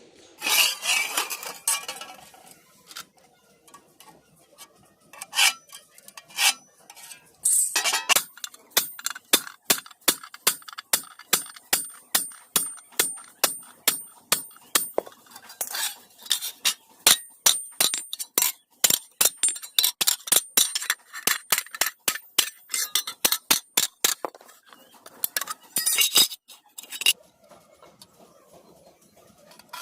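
Hand hammer striking iron on an anvil, each blow with a sharp metallic ring. A steady run of about two to three blows a second fills most of the middle, with a few scattered strikes and some scraping before and after it.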